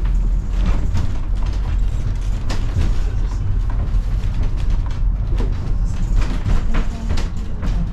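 Wooden cabin car of the Duquesne Incline funicular riding up its track: a steady low rumble with irregular clicks and knocks from the car and rails.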